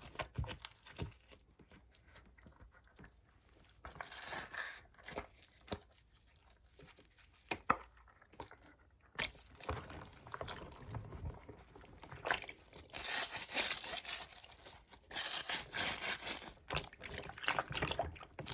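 Fidget toys being pushed around and scrubbed in a bin of soapy water: irregular sloshing, splashing and rubbing, with a few light knocks, busier in the second half.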